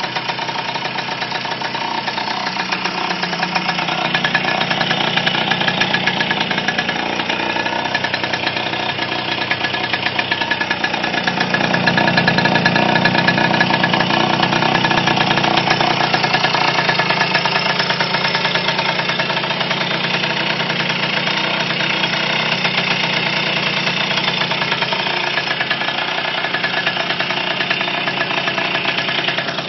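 Fantic Caballero TX-96's 50cc Minarelli P6 two-stroke single running on its first start after years laid up. It runs steadily, with the revs picking up about ten seconds in and easing back a few seconds later.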